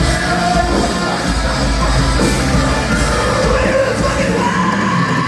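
Metalcore band playing live, heard loud through a concert recording, with distorted guitars, drums and screamed vocals. The low bass and drums drop away near the end.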